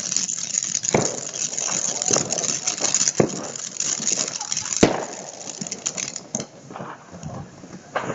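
Firework battery (cake) firing: a dense crackling of crackle stars with three sharp bangs, thinning out over the last few seconds.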